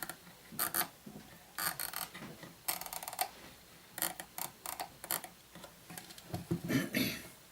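Irregular clicks and light metallic rattles from the metal mechanism of a Franz FB-4 electric metronome as it is handled and worked on for disassembly. There is a heavier clunk about seven seconds in.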